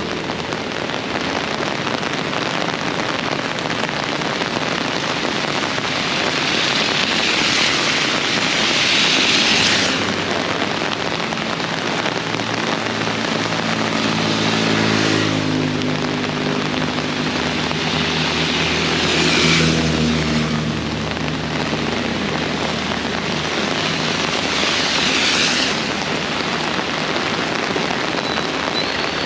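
Heavy rain hissing steadily, swelling in several surges, with an engine passing about midway: its low hum rises and fades over several seconds.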